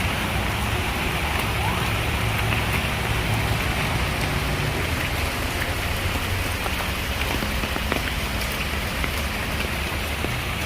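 Steady rain falling, with a low rumble underneath and scattered light ticks.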